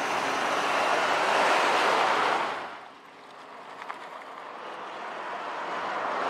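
Pickup trucks passing by: a rush of tyre and wind noise with no clear engine note. It fades out about three seconds in, then builds again as another truck approaches.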